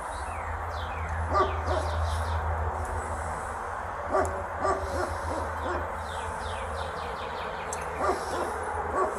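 A few short hooting animal calls, one to a few seconds apart, over faint high chirping and a steady low rumble.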